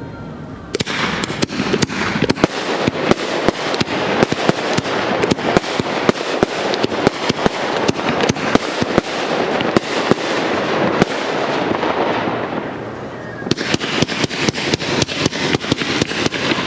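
Aerial fireworks going off in fast volleys: a dense run of rapid bangs and crackles starts about a second in, eases off briefly about two-thirds of the way through, then picks up again near the end.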